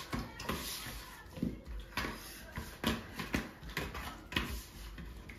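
Rice and curry being mixed by hand on steel platters: irregular soft clicks and scrapes of fingers and food against the metal, several a second.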